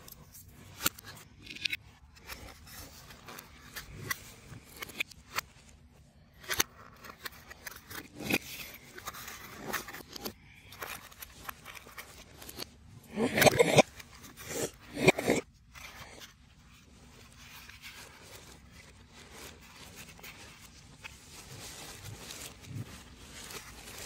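3D puzzle pieces being handled, pressed out and fitted together: scattered clicks and scrapes, with two louder crunching scrapes a little past the middle.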